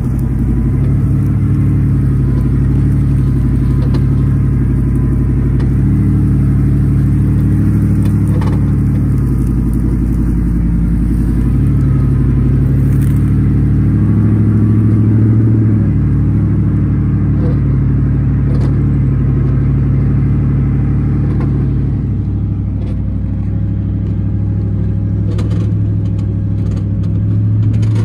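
A 2005 GMC 1500 pickup's engine running as the truck drives slowly over a field, a steady low drone that rises a little about halfway through and eases off later. A few light clicks or rattles come near the end.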